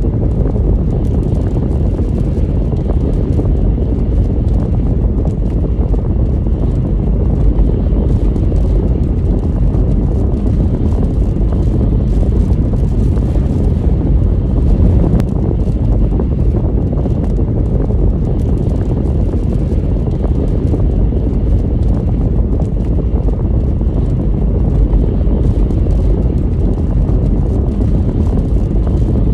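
Strong storm wind blowing across the microphone: a loud, steady low rumble of wind noise.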